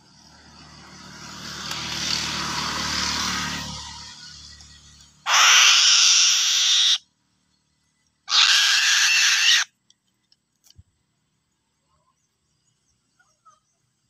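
Eaglet calling: a long harsh rasping call that swells and fades over the first four seconds, then two loud harsh screeches of about a second and a half each, a second apart.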